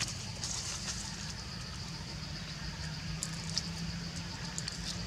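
Quiet outdoor background: a steady faint low hum and a faint high steady tone, with a few faint soft clicks in the second half.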